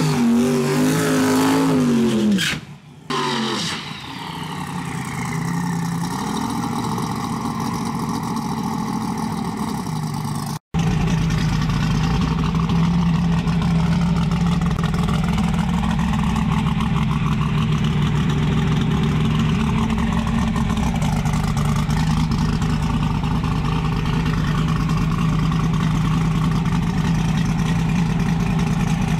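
Twin-turbo Chevy Nova drag car's engine at the starting line. In the first few seconds its note rises and falls in pitch; after a brief dropout about ten seconds in, it settles into a loud, steady idle with an even pulse.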